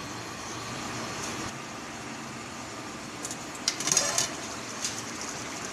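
An aluminium lid lifted off a cooking pot: a short cluster of metallic clinks and scrapes a little past halfway through, over a steady background hiss.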